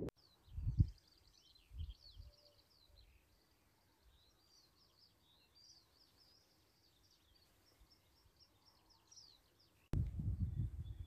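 Songbirds singing in a dense chorus of quick chirps and trills, with two brief low gusts of wind on the microphone in the first two seconds. Near the end, wind buffeting the microphone rises to a loud low rumble.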